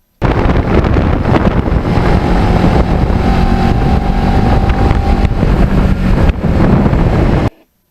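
Kawasaki Ninja 650R's parallel-twin engine running while riding, under heavy wind rush on the microphone. The sound starts and stops abruptly.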